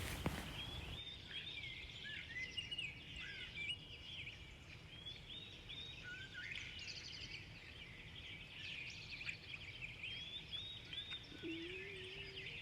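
Small birds chirping and twittering faintly, many short call notes one after another.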